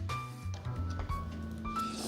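Background music: a light jazzy tune with held mallet-like notes over bass and drums.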